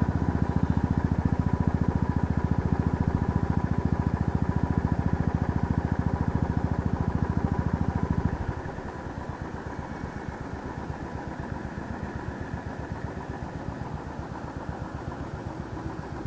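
Motorcycle engine running steadily under throttle with a fast, even firing pulse. About eight seconds in it drops to a quieter, lighter run as the throttle is eased off.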